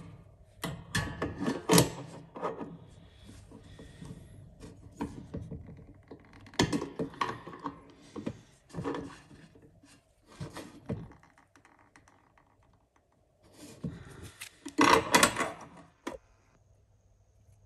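Basin wrench working a tap connector's nut: metal clicking, scraping and knocking in a few short bursts with quiet gaps, the loudest clatter near the end.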